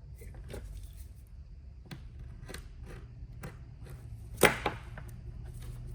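Scattered light clicks and knocks, with one louder knock about four and a half seconds in, over a low steady hum.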